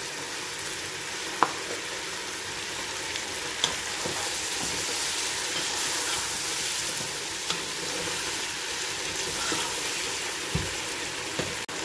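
Chicken pieces and chopped vegetables sizzling in hot oil in a nonstick pot, stirred with a wooden spoon: a steady frying hiss with a few sharp clicks of the spoon.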